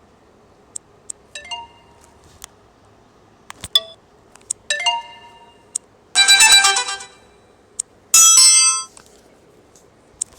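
Built-in alert tones of an Asus ZenFone 2 Laser played one after another: about five short bell-like chimes, each under a second long, the last two louder and fuller. Faint clicks fall between them.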